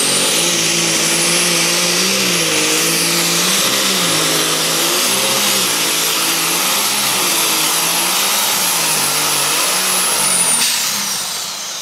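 Modified pulling tractor's engine at full throttle under load while it pulls the sled, with a high whine that climbs at the launch and holds steady. About ten and a half seconds in, the whine falls away and the engine gets quieter.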